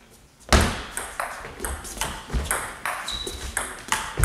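Table tennis rally: the ball clicks off the rackets and the table in quick succession, about two to three hits a second. The clicks start about half a second in, after a brief quiet.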